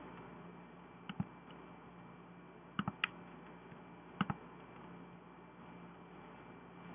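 Computer mouse and keyboard clicks, in three quick pairs spread over a few seconds, over a faint steady hum: selecting areas with the magic wand and pressing Delete to clear them.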